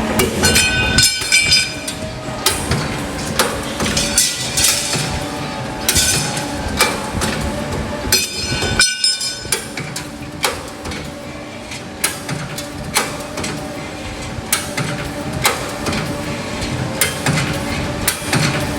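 Hydraulic angle iron flange punching machine running an order: a steady hum with sharp metallic punch strikes about once a second. Twice, briefly, there is a high metallic ringing.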